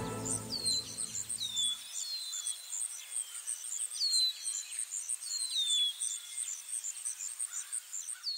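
Evening outdoor ambience: an insect chirps in a steady high pulse about three times a second, and birds give short high calls that slide downward every second or two. String music fades out in the first two seconds.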